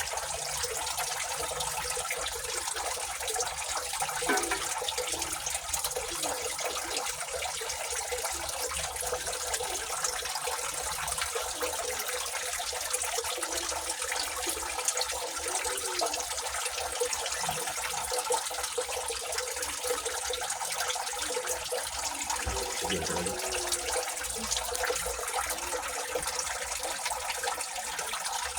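A steady, even hiss that does not change in level or character.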